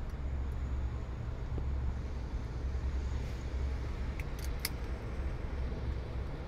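Seat harness buckle being fastened: a few sharp metallic clicks about four and a half seconds in, over a steady low rumble.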